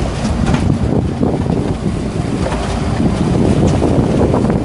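Wind buffeting the microphone on a sportfishing boat under way, over the steady noise of the boat's engines and churning water at the stern.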